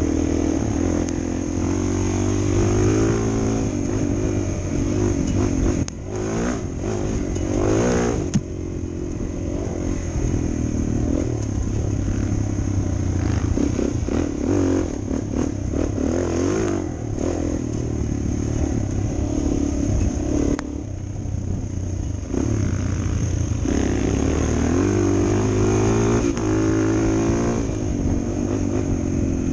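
Suzuki DR 400 dual-sport motorcycle's single-cylinder four-stroke engine running under way, its pitch rising and falling with the throttle, and dropping sharply a few times where the throttle is shut or a gear is changed. A burst of rattling clatter comes a few seconds in.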